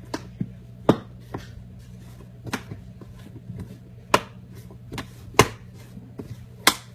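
Plastic Tupperware lid being pressed onto its container, snapping into place: a series of sharp clicks and snaps, five louder ones about a second and a half apart.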